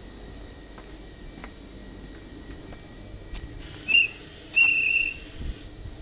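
A whistle blown twice beside the stopped ICMm train, a short blast and then a longer warbling one, typical of a departure signal. A burst of hissing air sounds alongside the blasts, over a steady high whine.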